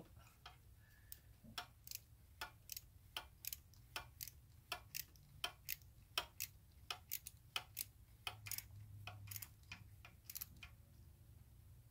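Socket ratchet clicking in short, uneven strokes, about two or three clicks a second, as the EGR valve's rear mounting bolt is tightened down by hand.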